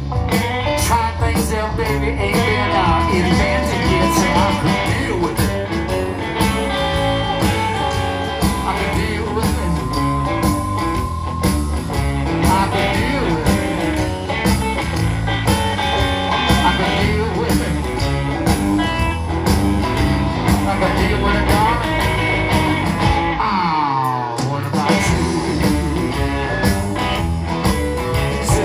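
Live blues band playing with electric guitars, bass and drums at a steady, loud level, with a note sliding down in pitch about three-quarters of the way through.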